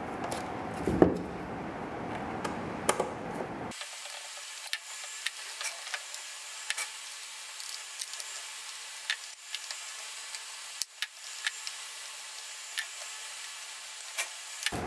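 Scattered light clicks and taps of a screwdriver and plastic parts as a truck side-mirror housing is screwed back together, over a steady hiss, with one louder knock about a second in. A little under four seconds in, the low room rumble cuts out suddenly, leaving a thinner hiss.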